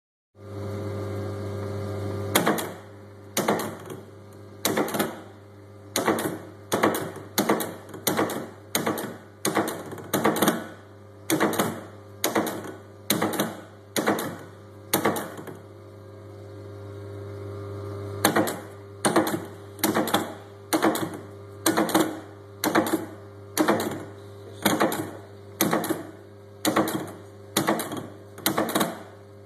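Platen printing press (tiegel) running with a steady motor hum and a regular sharp knock about every 0.7 s. The knocking starts about two seconds in, stops for a few seconds midway, then resumes. The knock is the fault the title complains of.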